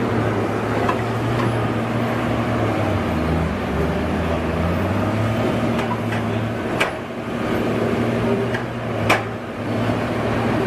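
Engine of a heavy wood-cutting machine running steadily with a low hum, with a few sharp knocks, the loudest about nine seconds in.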